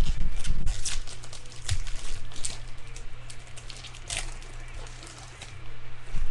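Trading card pack wrapper crinkling and rustling as cards are handled, with scattered short clicks and a few low knocks of handling near the start, over a steady low electrical hum.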